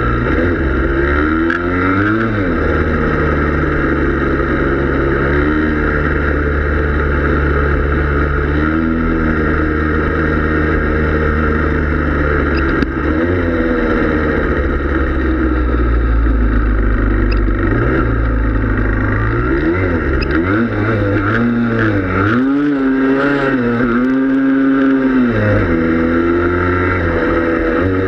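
Yamaha Blaster ATV's single-cylinder two-stroke engine running as it is ridden through snow, its revs rising and falling again and again, with the widest swings in the second half.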